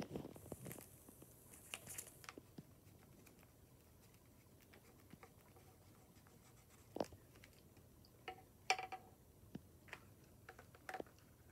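Faint scratching of a crayon drawing on paper for the first couple of seconds, then a few scattered light clicks and taps as crayons are handled and slipped back into their cardboard box.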